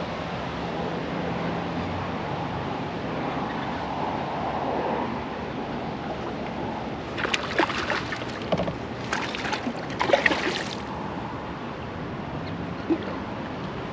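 Water lapping and sloshing around a fishing kayak. From about seven to eleven seconds in come three bursts of sharp clattering and splashing, the loudest sounds here, while a bass is fought on a hard-bent rod.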